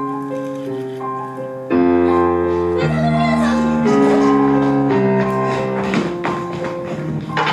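Piano music playing a gentle pattern of held notes. About two seconds in, a fuller accompaniment with a deep bass comes in and the music gets louder.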